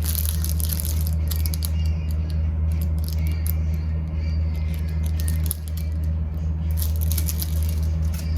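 Crinkling and clicking of plastic packaging as a makeup brush is handled and unwrapped, over a steady low hum.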